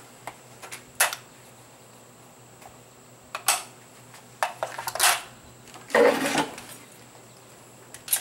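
Metallic clicks and clacks of an AR-15 rifle being handled and readied for firing, a handful of separate strokes with the loudest about six seconds in. A loud shot begins right at the end.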